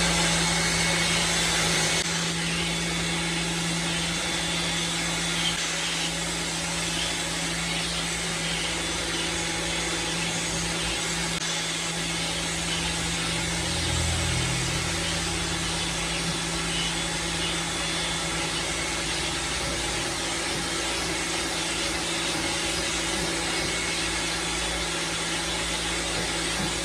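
Lavor Fast Plus 130 electric pressure washer running steadily with its trigger held, spraying shampoo foam through its foam cannon: a constant motor hum under a dense spray hiss, which cuts off right at the end.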